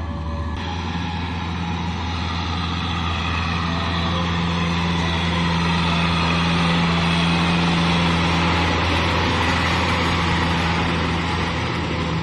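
Kubota M6040SU tractor's diesel engine running steadily while pulling a rotary tiller through wet paddy mud, with the tiller churning underneath. The sound swells about halfway through as the tractor passes close, then eases slightly.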